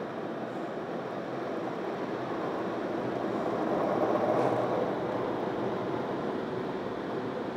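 Automatic car wash machinery, heard from inside the car's cabin: a steady rushing noise that swells about four seconds in, as the car passes the spinning cloth brushes.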